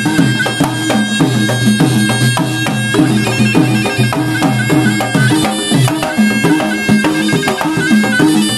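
Traditional Malay gendang silat music: a serunai (Malay oboe) plays a continuous, reedy, nasal melody over two gendang barrel drums beaten with the hands in rapid, dense strokes.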